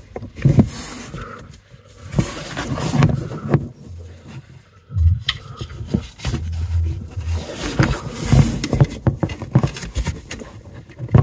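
Gloved hands scraping, rustling and knocking close to the microphone while working a plastic fog-light bulb connector into place, with irregular clicks and two short low rumbles about halfway through.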